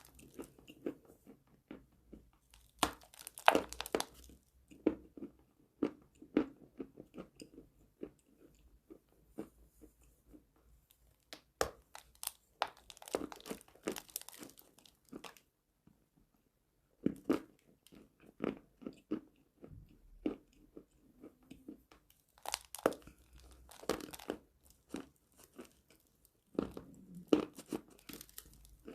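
Close-miked crunching and chewing of edible chalk: crisp bites and crunches come in spells of a few seconds, with short quieter pauses between.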